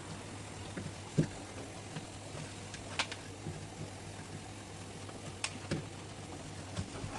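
Scattered light clicks and knocks of things being handled during kitchen cleaning, over a steady low hum.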